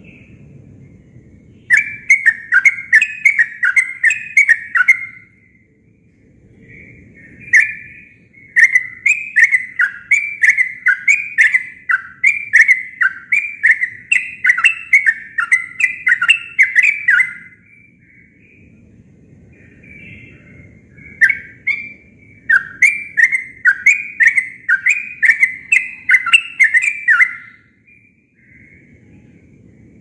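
Yellow-vented bulbul singing in three long bouts of rapid repeated bubbling notes, about four a second, with short pauses between bouts.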